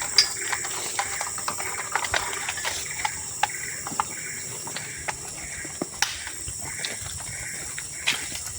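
Outdoor insect chorus: a steady high-pitched hiss with soft chirping pulses about twice a second, broken by scattered sharp clicks and knocks.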